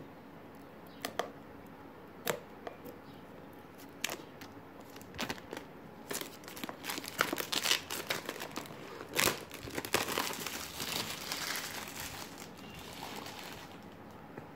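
Clear plastic shrink wrap being torn and peeled off a phone's cardboard box, crinkling. At first there are a few separate crackles, then a dense stretch of crinkling through the middle that fades out near the end.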